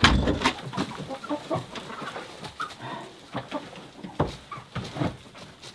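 Chickens clucking in short scattered calls, with a loud thump at the very start and sharp knocks here and there.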